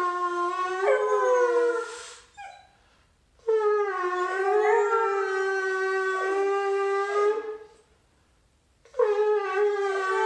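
Shofar (ram's horn) blown in three long, steady blasts, with short gaps between them. A puppy howls along, its voice sliding down under the second blast.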